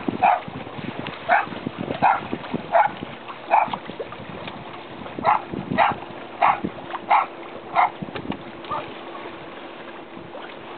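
A small dog barking repeatedly, about ten short sharp barks spaced half a second to a second apart, stopping about eight seconds in. A faint steady hum lies under the second half.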